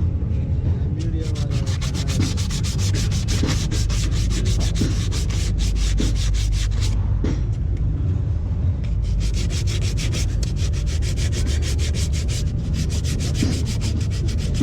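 Quick back-and-forth abrasive rubbing strokes, about six or seven a second, with a brief pause about seven seconds in, over a steady low rumble.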